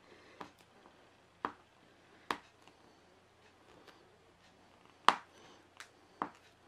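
Fingernails picking at tape on a plastic-wrapped canvas roll, trying to lift its end: a handful of sharp, irregular clicks, the loudest about five seconds in.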